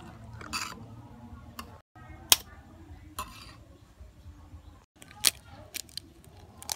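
Metal spoon clinking against a ceramic bowl while stirring flour batter: a handful of sharp clinks, the loudest about two and a half seconds in. Near the end come a few more quick taps as an egg is cracked into the bowl.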